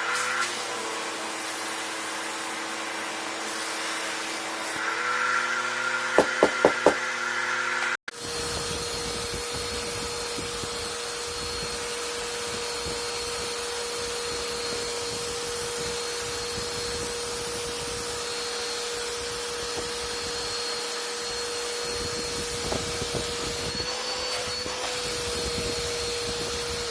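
Vacuum cleaner motors running steadily while picking up debris, with four sharp knocks about six seconds in. The sound cuts off abruptly about eight seconds in and a different vacuum takes over, its motor with a high whine and a rattle of debris underneath.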